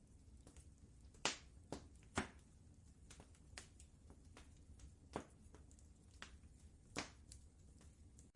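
Wood fire crackling: irregular sharp pops and snaps, the three loudest about a second in, about two seconds in and about seven seconds in, over a low steady rumble.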